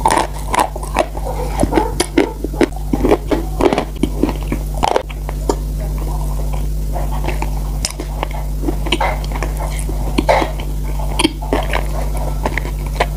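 Chewing and wet mouth sounds of eating a soft, creamy food: irregular lip smacks and small sticky clicks, thinning out briefly in the middle, over a steady low electrical hum.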